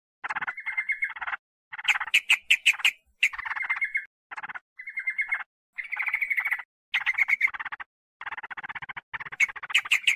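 Yellow-vented bulbul (trucukan) calls from a bird-trapping lure recording: bursts of fast, harsh chattering notes, each up to about a second and a half long, broken by short gaps.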